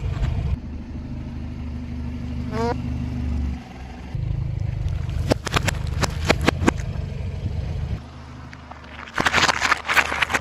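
A car engine running slowly and steadily while its tyres crush objects. Quick runs of cracks and crunches come about halfway through and again near the end.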